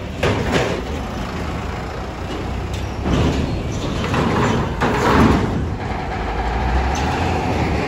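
Heavy vehicles, a coach bus and a box truck, running and driving past close by as traffic rolls off a ferry ramp, with engine and road noise swelling louder about three and five seconds in.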